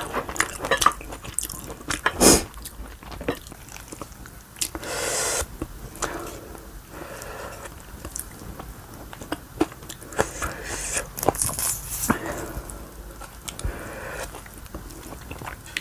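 Close-miked eating of kimchi, ramyeon and rice: chewing and biting with sharp crunches and clicks throughout, and a loud burst about two seconds in.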